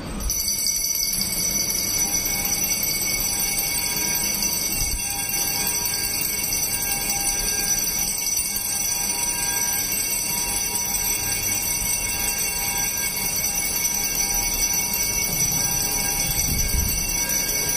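Altar bells ringing continuously at Benediction of the Blessed Sacrament, a dense high-pitched metallic ringing that starts abruptly and holds steady without a break.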